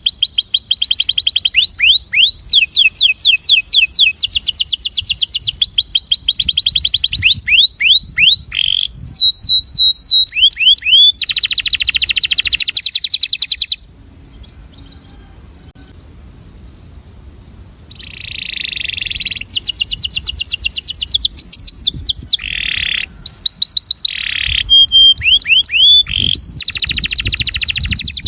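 Male domestic canary singing its breeding-male courtship song: fast rolls of repeated high sweeping notes, each run switching to a new note type. It falls silent for a few seconds about halfway through, then starts up again.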